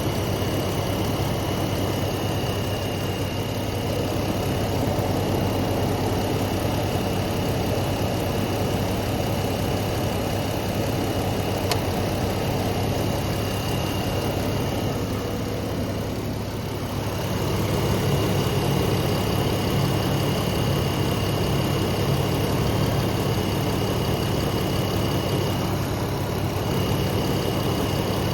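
Jeep engine idling steadily, with a thin high whine over the low hum. The level dips briefly about two-thirds of the way through, then picks up again.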